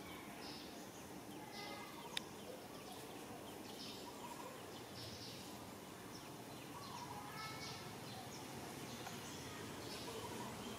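Faint outdoor ambience with scattered short, high chirps from small animals, and a single sharp click about two seconds in.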